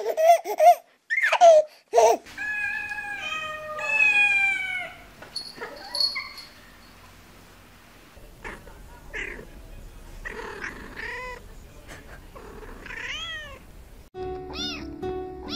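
Domestic cats meowing over and over: several loud meows in the first two seconds, then a string of quieter meows. Near the end a backing music track starts under them.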